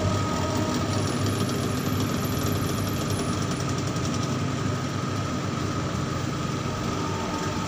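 Tower crane machinery humming steadily, heard from inside the operator's cab: an even low drone with a steady tone above it.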